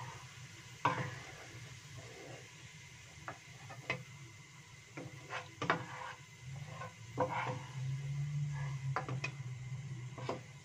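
Wooden spatula scraping and tapping against a wok in irregular knocks as frying shallots are scooped out of hot oil, with light sizzling. A low hum runs underneath and swells from about two-thirds of the way in.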